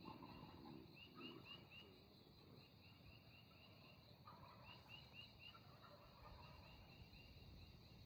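Faint, distant wild turkey gobblers gobbling several times.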